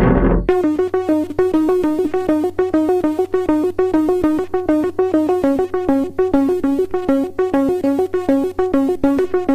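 Electronic synthesizer playing a fast run of short, clipped notes, several a second, bouncing between a few pitches over a steady low hum. It starts abruptly about half a second in.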